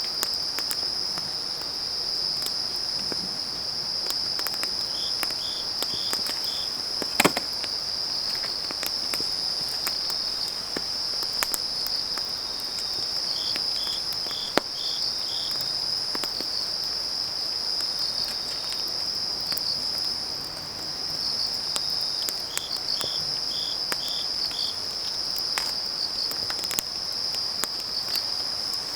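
Autumn night insects trilling steadily, high-pitched, with another insect chirping in short groups of about five every eight seconds or so. Burning firewood crackles throughout with scattered sharp pops, the loudest about seven seconds in.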